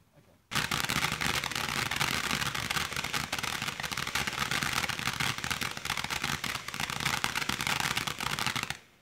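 Crackling ground fountain firework spraying sparks: it starts suddenly about half a second in with a dense hiss full of rapid crackles, keeps on evenly, and cuts off near the end.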